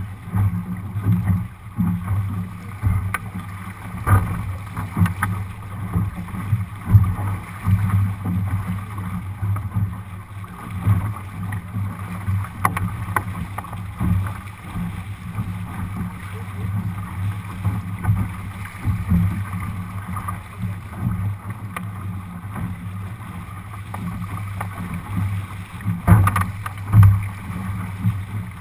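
Water rushing along the hull of a Lightning-class sailboat sailing upwind through chop, with wind buffeting the camera microphone and scattered knocks as the hull slaps into waves, a few louder ones near the end.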